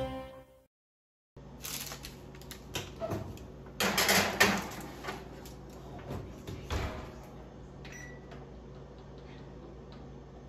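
Clicks and metal clanks of a gas range oven being worked: the oven door opened, the baking tray of cookies on the rack handled, and the door shut. The clatter is loudest about four seconds in and dies down after about seven seconds.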